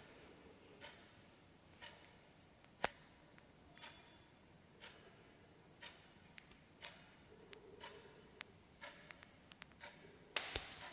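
Near silence: room tone with a faint high hiss and soft ticks about once a second, and a louder knock near the end.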